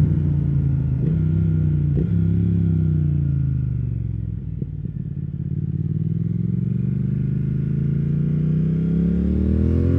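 2020 Triumph Speed Twin's 1200 cc parallel-twin engine, heard from the rider's seat. The engine note falls for about the first four seconds as the bike slows, with a few brief clicks, then rises steadily as it accelerates again.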